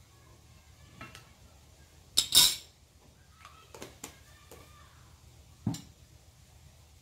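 Kitchen utensils clinking and clattering against a frying pan: a few light clicks, a loud clatter about two seconds in, more clicks, then one sharp knock near the end.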